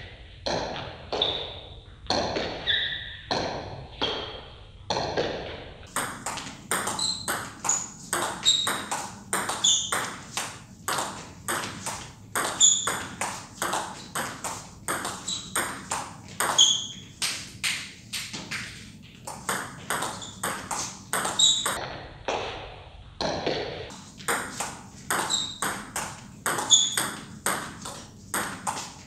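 Table tennis rally during chopping practice: the ball clicks off the rackets and pings on the table in quick alternation, about two to three hits a second. The rally breaks briefly a couple of times about two-thirds of the way in.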